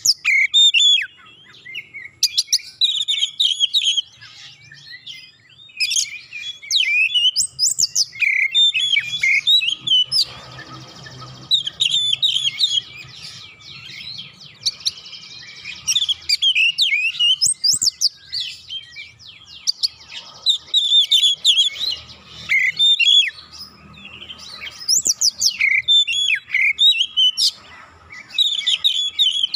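Oriental magpie-robin (kacer) singing a loud, varied song of quick whistles and chatter, delivered in bursts of a second or two with short pauses.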